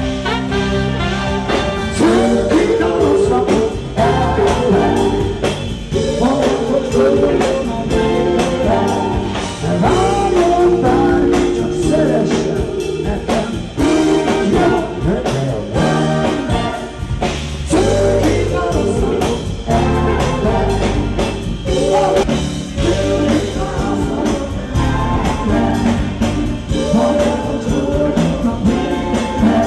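Live band playing a song with a singer over it, driven by a steady drum beat.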